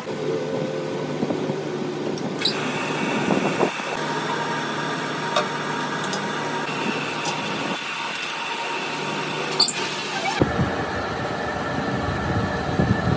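Metal lathe running with a steady motor hum and whine, with scattered sharp metallic clicks and clinks. The sound shifts abruptly twice.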